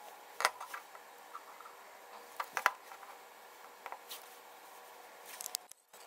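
Handling noise: a few light clicks and taps as a flat lithium pouch battery and a small circuit board are moved and set down on a tabletop, with the sharpest clicks about half a second in and near the middle, and a quick run of taps near the end.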